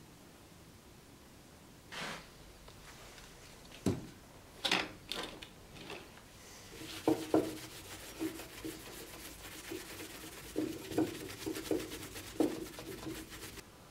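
Steel sword guard being rubbed down by hand with an abrasive on a wooden block: a fast, scratchy run of strokes through the second half, with short ringing notes from the steel at the firmer strokes. Before that, a few separate knocks as the pieces are handled and set down.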